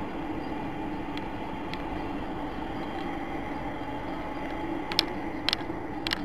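Steady drone of a car driving, heard from inside the cabin, with a few short sharp clicks or knocks about five seconds in.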